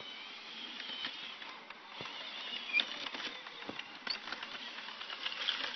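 RC Caterpillar 963D track loader model working: a high electric motor and gear whine that shifts in pitch, with rapid clicking and rattling from the tracks and mechanism.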